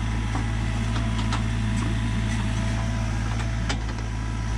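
Sany U35 mini excavator's diesel engine running steadily at a constant pitch, with a few faint clicks over it.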